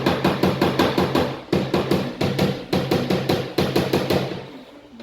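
Small PDR tap-down hammer striking a stretched crease in a car door's sheet metal in quick, even taps, about six or seven a second, with two short pauses and stopping near the end. The steel panel rings under the blows while the crease is held from behind with a hook.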